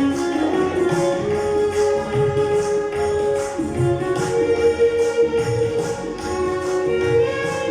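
Instrumental bhajan accompaniment between sung lines: long held melody notes over a steady beat of jingling hand percussion and drum strokes.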